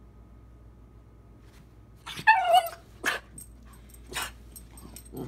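Puggle-terrier mix puppy barking back: a few barks starting about two seconds in, the first and loudest a yelp that falls in pitch.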